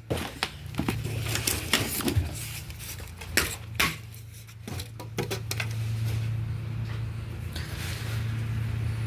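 Knocks, clicks and scrapes of packaging being pulled and broken off a new refrigerator, styrofoam and cardboard among it. A steady low hum grows a little louder in the last few seconds.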